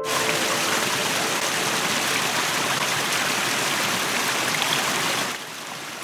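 A shallow stream rushing and splashing over rocks in small cascades, a steady rush of water. A little after five seconds in it drops to a quieter water sound.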